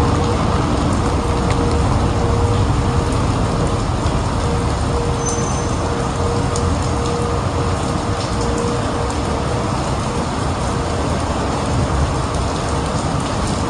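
Heavy rain and city street traffic: a steady, dense hiss of rain and wet tyres over a low rumble of engines, with a steady hum running through it.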